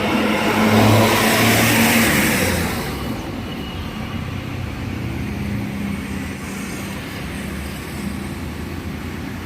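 Diesel tour bus on a Mercedes-Benz OH 1626 chassis passing close by. Its engine and tyre rush are loudest about one to two seconds in, then fade by about three seconds to a steady rumble of engines.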